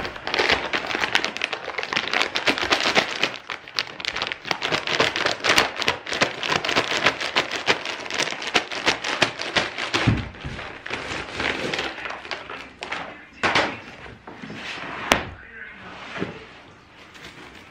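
Plastic wrapping on a rolled area rug crinkling and rustling as it is handled and pulled loose, for most of the clip. Near the end the crinkling thins out into a few thumps and knocks as the rug is laid down and unrolled on the floor.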